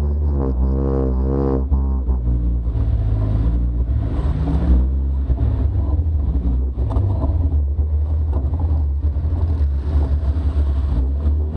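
Arctic Cat Wildcat side-by-side engines running under a steady low rumble, revving up and down in the first couple of seconds, with another rev rising about four seconds in.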